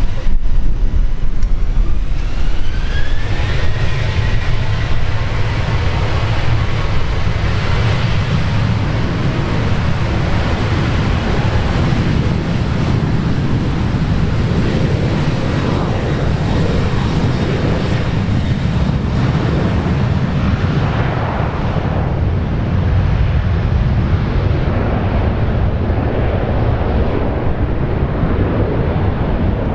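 Boeing 737 twin jet engines at takeoff power on the takeoff roll: a whine that rises in pitch over the first few seconds, then a loud, steady jet roar as the airliner accelerates away.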